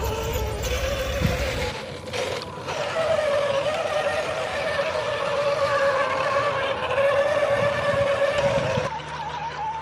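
Brushed electric motor and gear drivetrain of an RC scale GAZ-66 truck whining as it drives through shallow muddy water. The pitch wavers with the throttle and sits higher near the end, over a noisy wash of water and tyres.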